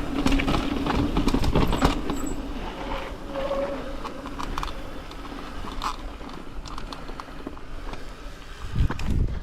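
Mountain bike riding down a dirt trail: a steady rumble of tyres on dirt and wind on the microphone, with frequent clicks and rattles from the bike. A loud low thump near the end, then the noise drops away sharply.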